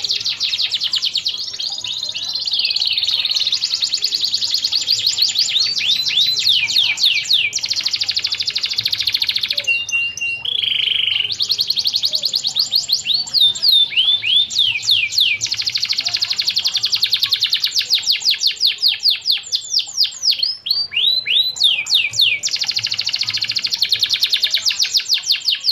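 Domestic canary singing a continuous fast song of rapid trills and rolls of repeated notes, broken by falling sweeps, with a short buzzy held note about ten seconds in.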